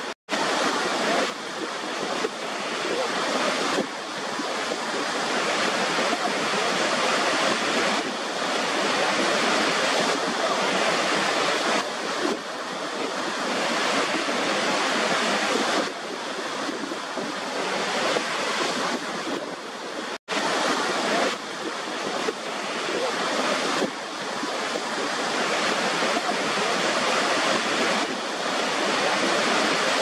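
Steady rushing of water pouring over the brink of a large waterfall, swelling and easing every few seconds. The sound cuts out briefly twice, just after the start and about twenty seconds in.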